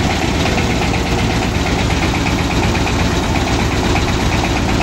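Dongfeng single-cylinder diesel engine powering a river ferry boat, running steadily at low speed with a rapid, even knocking beat.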